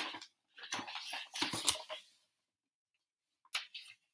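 Paper notebook being handled and written in: a short click, then a second or so of scratching and rustling, and a brief scrape near the end.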